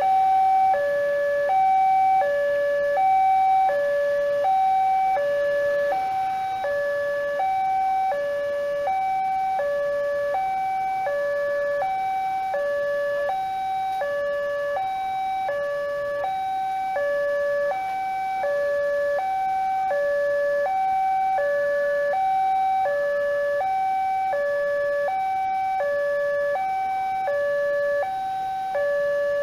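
Railway level-crossing warning alarm sounding from the horn loudspeaker on the crossing signal post: an electronic two-tone signal alternating steadily between a higher and a lower note, a change about every three-quarters of a second. It warns that a train is approaching and the barrier is closing.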